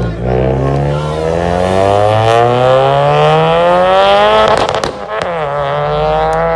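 A performance car's engine pulling hard, its note climbing steadily for about four seconds. A gear change follows with a few sharp cracks, then the engine holds a steadier note.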